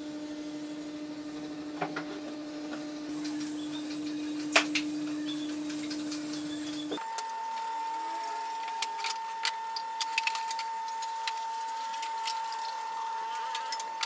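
Marking out a wooden board by hand: short taps, clicks and scrapes of a pencil, a wooden compass and a steel ruler on the wood. Behind them runs a steady tone that jumps higher in pitch about seven seconds in.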